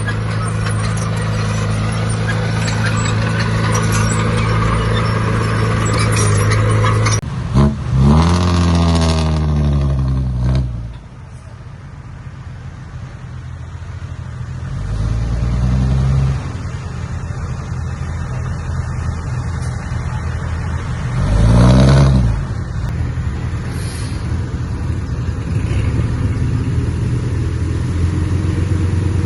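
Heavy diesel engine of earthmoving machinery running steadily, its revs surging and falling three times, longest about a quarter of the way in.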